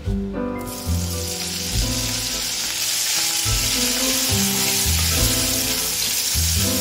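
Bacon strips sizzling in hot oil in a frying pan, a steady hiss that starts suddenly about half a second in.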